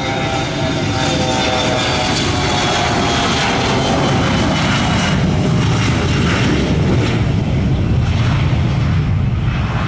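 Airliner engines running loud, with a few tones sliding slightly downward in the first seconds and a low rumble growing stronger in the second half.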